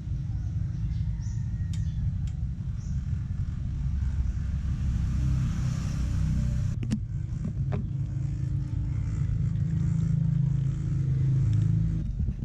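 A vehicle engine running with a steady low rumble, growing a little louder near the end, with a few sharp clicks over it.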